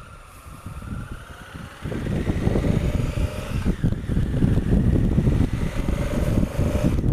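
Honda Africa Twin CRF1000L's parallel-twin engine pulling away, its note rising as the bike picks up speed. From about two seconds in, wind buffets the helmet-mounted microphone and is louder than the engine.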